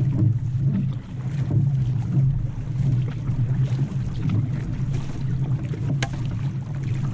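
Outrigger canoe being paddled: paddle blades strike and pull through the water in a steady rhythm while water rushes along the hull and wind buffets the microphone just above the surface, with a sharp knock about six seconds in.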